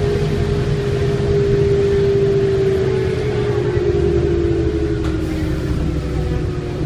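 A 1995 New Flyer D40LF bus running at road speed, heard from inside the passenger cabin: the low rumble of its Detroit Diesel Series 50 engine, with a steady whine that slowly falls in pitch.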